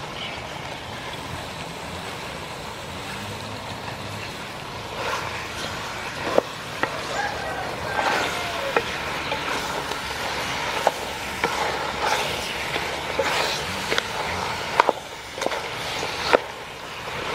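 A wooden spoon stirring chopped raw pork leg in a large aluminium pot of caramelised palm sugar, scraping against the meat and the pot. From about five seconds in the stirring grows busier, with scattered sharp knocks of the spoon against the pot.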